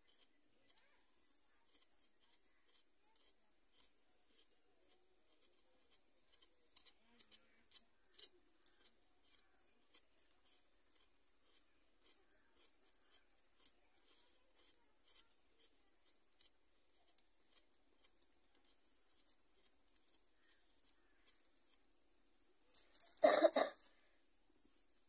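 Wood fire in a clay chulha crackling faintly, with irregular small pops. Near the end there is one louder noise about a second long.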